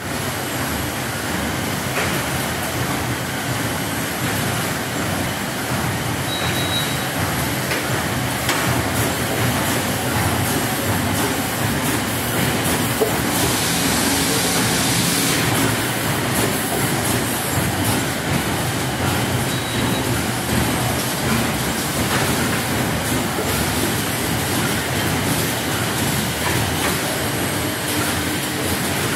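Tissue paper production line machinery running: a steady, dense mechanical clatter and hum of the folding, conveying and packing machines. A brief rise in hiss comes about fourteen seconds in.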